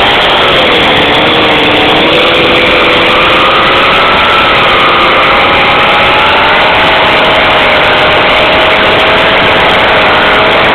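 Two-stroke chainsaw engine powering a homemade snowblower, running loud and steady, its speed wavering a little.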